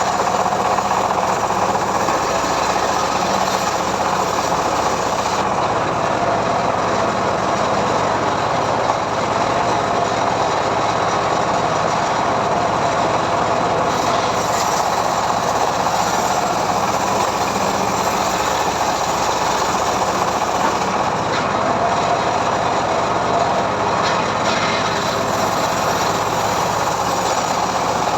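Homemade engine-driven portable sawmill running steadily, ripping mahogany timber, with a constant high hum and no breaks in the noise.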